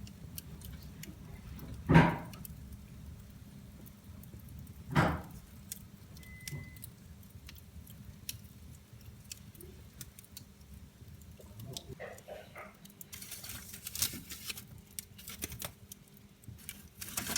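Wood fire in a fireplace crackling, with scattered small sharp pops that come thick and fast near the end. Two louder dull thumps stand out, about two and five seconds in.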